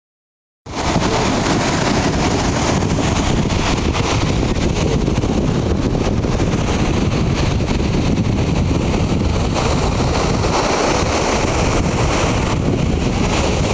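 Strong wind buffeting the microphone, a loud steady rumble, with ocean surf behind it. It starts about half a second in.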